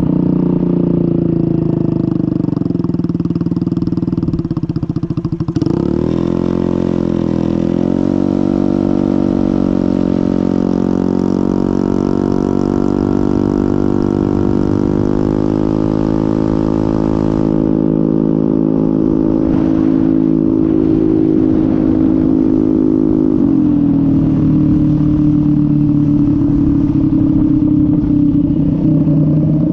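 Honda MetRuck scooter's small engine running under way, with wind rush over the helmet-mounted camera. About five seconds in the engine speeds up and holds a higher steady pitch, then drops back to a lower pitch about three-quarters of the way through.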